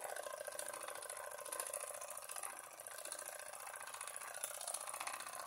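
Wilesco D3 toy steam engine running fast under steam, its small oscillating cylinder and flywheel making a steady, rapid clatter of even ticks.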